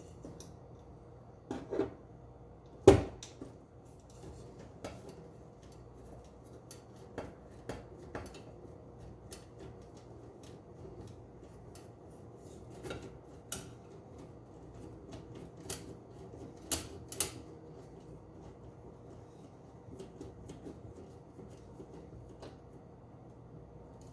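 Scattered small metallic clicks, clinks and taps of hand tools and parts being handled while reconnecting the wires of a PTAC air conditioner's power cord, with one sharp knock about three seconds in and two quick knocks later on.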